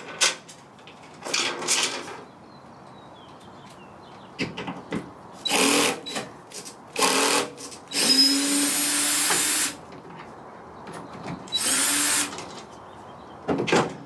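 Cordless drill-driver whirring in about six short runs, the longest nearly two seconds about eight seconds in, as it backs hex-head screws out of a pickup's tailgate panel.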